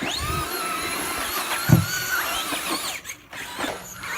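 Electric RC car motor whining at speed, its pitch rising as it accelerates, with one loud thump about one and a half seconds in. The whine drops away near the end.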